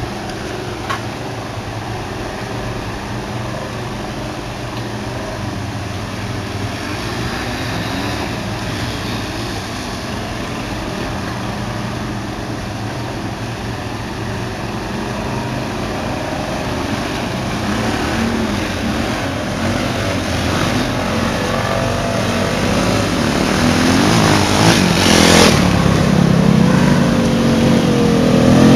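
ATV engine running, growing steadily louder toward the end with rising and falling revs, and a brief loud burst of noise a few seconds before the end.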